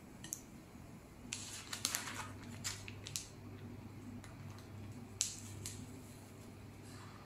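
Tabletop handling noises over a faint low hum: a few light clicks, then a burst of crinkly rustling for about two seconds, and a single sharp click about five seconds in.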